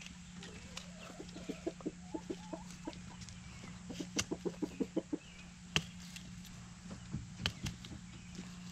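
Chickens clucking in runs of short, evenly spaced clucks, about four a second, with a couple of sharp clicks in the second half.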